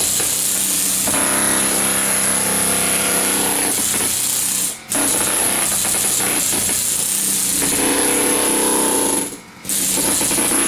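Handheld power chisel hammer with a wide scraper bit hammering continuously as it chips old porcelain tile and thinset off a wooden subfloor. It stops briefly twice, about halfway through and near the end.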